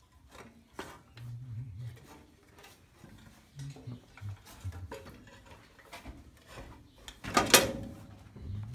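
Scattered clicks, knocks and rattles of metal parts and hand tools being handled as parts are taken off, with one much louder clatter about three-quarters of the way through.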